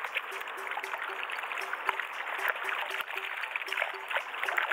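River water rushing steadily, with a short low note repeating about three times a second behind it.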